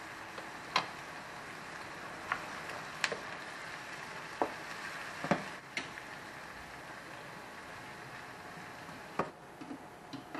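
Chopped onion, tomato and cashews sizzling steadily in butter in a nonstick frying pan, with a wooden spatula stirring and giving several sharp knocks against the pan.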